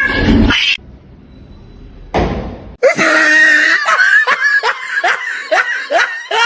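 A person laughing in a run of short, falling bursts, about two a second, after a brief quieter pause with a short noisy burst.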